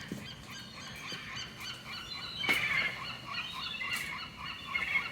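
Birds chirping and twittering, many short calls overlapping, with two sharp clicks about two and a half and four seconds in.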